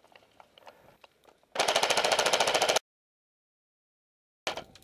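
Airsoft electric gun firing a full-auto burst: a fast, even stream of shots lasting just over a second, cut off abruptly.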